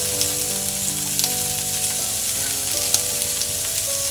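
Chicken drumettes sizzling steadily as they sear in a frying pan without added oil, with a few sharp ticks from the pan.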